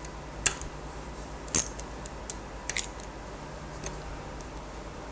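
Socket wrench on the 10 mm bolts of a Rotax engine's water pump housing: a few sharp metallic clicks about a second apart, as the retaining bolts are undone.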